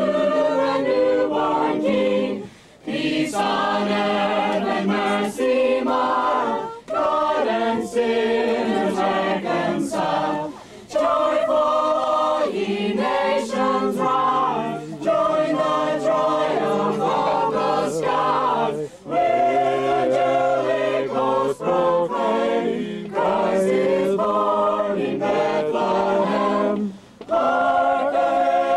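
A small group of carolers singing a Christmas carol together without accompaniment, in long held phrases with short pauses for breath between them.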